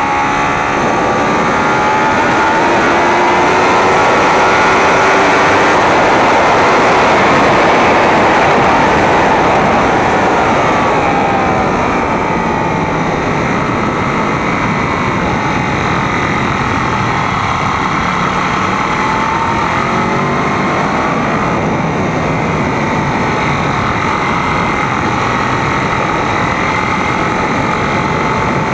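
Sport motorcycle engine at track speed under heavy wind rush on a fairing-mounted camera. The engine pitch climbs over the first several seconds, drops about ten seconds in and climbs again past the middle.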